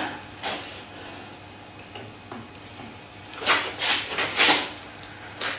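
Scraping and rubbing of a drive belt against the large pulley as the pulley is turned by hand to change the drill's speed. There is one scrape about half a second in, three close together about three and a half seconds in, and a last one near the end.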